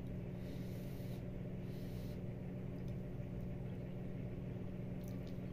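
Steady low hum of a room appliance, with faint slurping as spaghetti noodles are sucked in.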